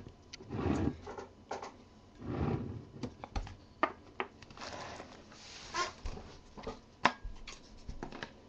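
A cardboard Topps Strata trading-card box being handled and shifted on a desk: soft rustling and scraping, with a few sharp light taps and knocks.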